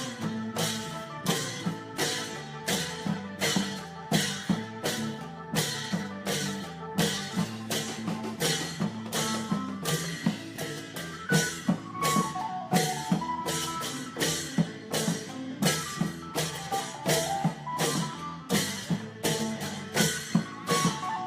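Isan klong yao long-drum ensemble playing: long drums keep a steady beat under cymbal clashes about twice a second, with a pitched melody line on top.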